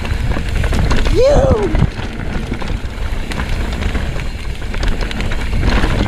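Mountain bike descending a rocky dirt trail at speed: steady wind rush on the microphone with tyre rumble and light rattling clicks. About a second in there is one short whoop that rises and then falls.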